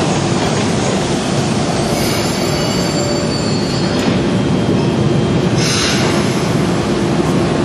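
Caracas Metro train running, a loud steady rumble of wheels on rails with thin squealing tones about two seconds in, and a brief hiss about six seconds in.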